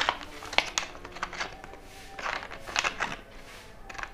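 Scissors snipping through a stiff clear plastic (mika) template sheet along a marked line. A string of short, sharp snips with crackles of the plastic.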